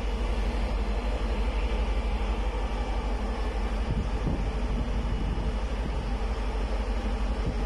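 Strong wind on a ship's open deck buffeting the microphone: a steady, loud low rumble with a constant rush over it, swelling slightly about four seconds in.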